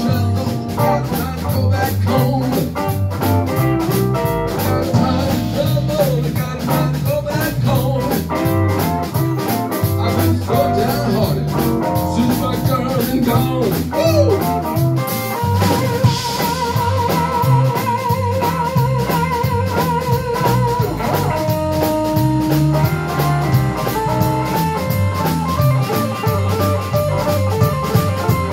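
Live blues trio: electric guitar lead with bent notes over electric bass and a drum kit keeping a steady beat. About halfway through a single long wavering note is held for several seconds.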